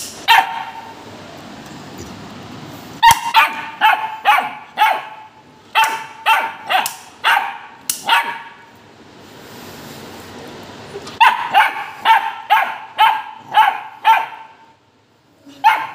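Pit bull barking aggressively at a toy gun held out to it, in two quick runs of sharp barks about two a second, with a pause of a few seconds between them.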